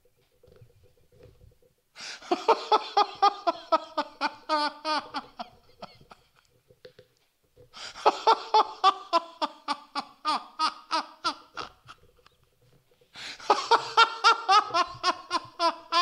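A man laughing in three long bouts of rapid, pulsing ha-ha-ha, each lasting a few seconds, with short pauses between.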